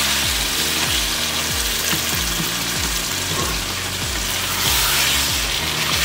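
Chicken karahi sizzling in a frying pan as it is stirred with a wooden spatula, in its last minute or two of frying after the coriander goes in. Background music with a steady low beat plays along.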